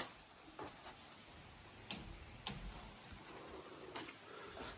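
A few faint clicks from the turn-signal flasher of a Plymouth P15, newly wired to 12 volts, as the right turn signal blinks.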